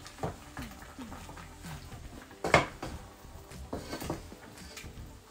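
A cooking spoon knocking and scraping against a pot while stirring turkey pieces in boiling broth, in scattered strokes with one sharp knock about two and a half seconds in.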